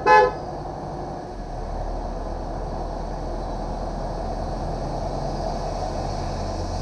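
The last of a quick run of MCI MC-8 bus horn toots cuts off a fraction of a second in. After that the coach's engine runs steadily, with a low hum that strengthens about a second and a half in.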